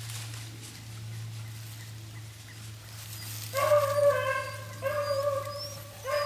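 Beagle hound bawling on a rabbit's trail: long, drawn-out bay notes that start about three and a half seconds in and follow one another with short breaks.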